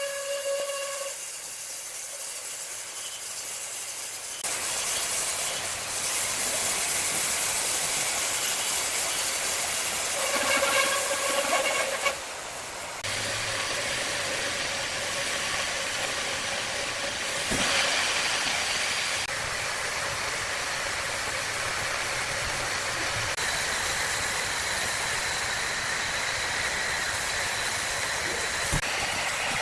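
Large sawmill saw cutting through a log: a pitched whine from the blade at first, then a steady hissing cutting noise that grows louder a few seconds in, with the whine returning briefly partway through.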